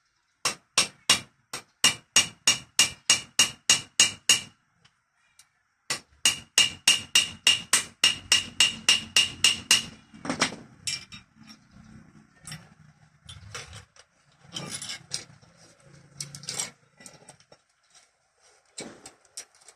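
Rapid, even hammer blows on metal, about three a second, each ringing, in two runs separated by a short pause, followed by scattered irregular knocks and clatter.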